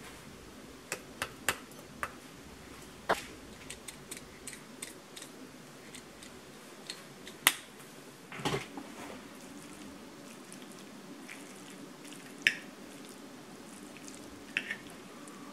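Scattered sharp clicks and taps of metal kitchen utensils on a ceramic bowl, with a short rustle about eight and a half seconds in. Near the end a fork clinks against the bowl.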